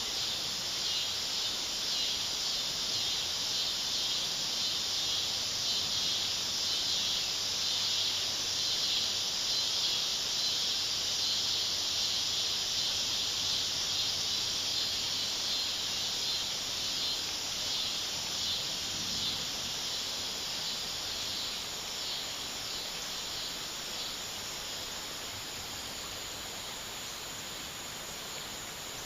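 Dense chorus of insects in summer woods, a steady high-pitched shrill with a fast pulsing texture, easing off slightly near the end.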